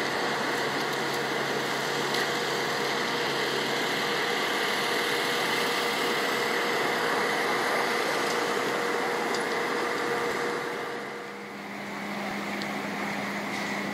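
Steady mechanical drone of idling engines or machinery, with a few held tones running through it. About eleven seconds in it dips briefly, then carries on with a different, lower tone.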